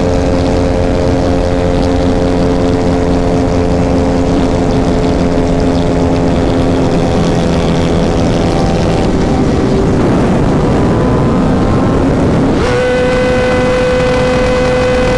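Tuned single-cylinder motorcycle engines held wide open at steady high revs, with heavy wind rush on the microphone. About two-thirds of the way through, the steady engine note breaks up into wind noise, then a new steady, higher engine note starts.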